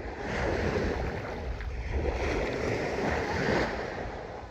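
Ocean surf washing onto a beach, rising and falling in swells, with wind buffeting the microphone.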